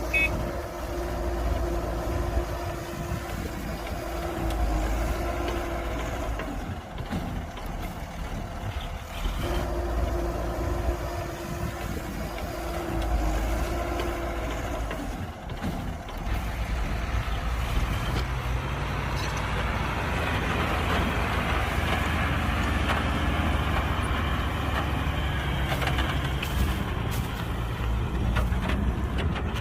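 Heavy diesel earthmoving machinery working: engines rumbling steadily, with a held mid-pitched tone that sounds twice for several seconds in the first half, and a rougher, busier clatter from about halfway on.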